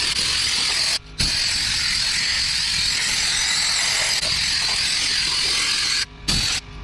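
Compressed-air blow gun on an air hose, giving a loud, steady hiss as it blows rat-nest debris out of a riding mower's engine. The air stops briefly about a second in and twice near the end.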